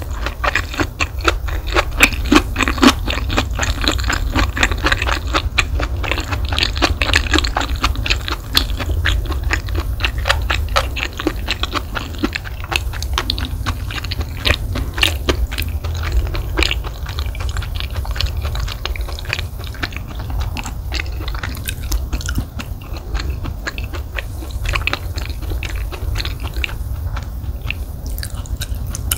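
Close-miked chewing of fried rice, with many small moist crunches and clicks. It is busier in the first half and lighter towards the end.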